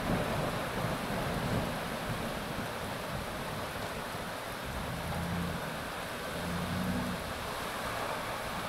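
Heavy downpour: a dense, even rushing hiss of rain. A low rumble swells briefly twice in the second half.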